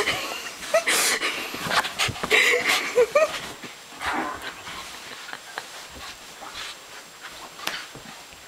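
A puppy play-fighting: a few short pitched yelps amid scuffling, rustling and thumps, busiest in the first three seconds and quieter afterwards.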